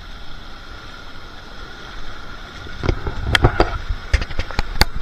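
Shallow surf washing over sand, with a low steady rumble on the microphone. About three seconds in, a string of sharp thumps and crackles begins.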